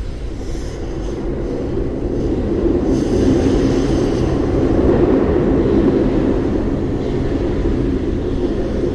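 Roaring sound effect of a theme-park lava-drilling machine prop: a loud, continuous mechanical rumble that swells a little midway.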